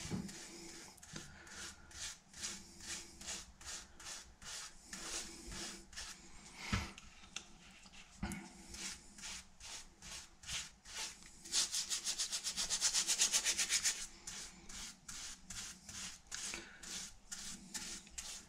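Bristle paintbrush brushing wet oxalic acid solution onto a bare oak beam, in repeated strokes about two to three a second. For a couple of seconds past the middle the brushing turns faster and louder, a quick scrub.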